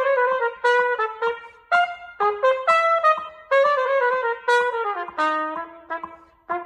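Unaccompanied solo trumpet playing a quick, tongued melodic passage in short phrases. About five seconds in, a falling run settles into short repeated lower notes.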